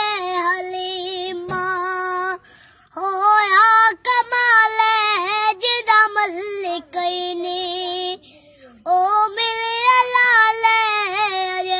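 A young boy singing a naat, an Islamic devotional hymn, solo voice with no accompaniment, in long held, wavering notes. The singing breaks off twice briefly, about two and a half and eight and a half seconds in.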